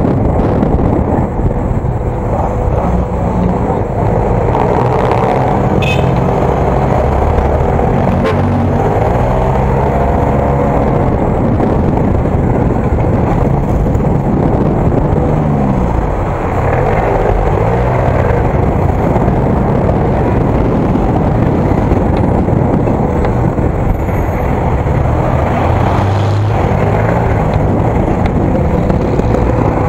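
Motorcycle engine running through traffic, its pitch rising and falling several times as it is throttled up and eased off, under a steady rush of wind on the microphone.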